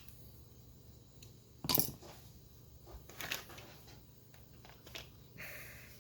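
Parts of a paintball marker being handled and fitted together: one sharp clack a little under two seconds in, then a few softer clicks and a brief rustle.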